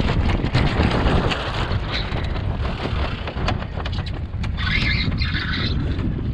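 Wind buffeting the microphone aboard a small wooden sailboat in a gusty breeze, with water rushing along the hull and a brighter splash about five seconds in.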